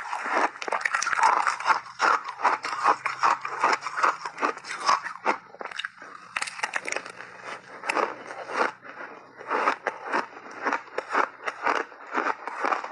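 A mouthful of shaved ice mixed with frozen berries crunched and chewed: a fast, irregular run of crisp crunches, with a spoon scraping through the icy mix in the bowl in the first couple of seconds.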